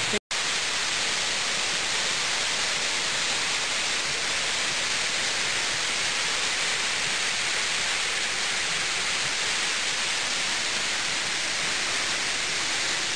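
Rainforest waterfall in full flow after recent rains, its falling water making a steady, unbroken rushing hiss.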